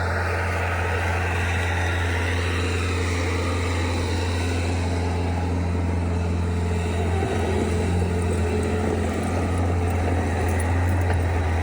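Bobcat S76 skid steer's diesel engine running steadily at working speed, a loud, even low hum.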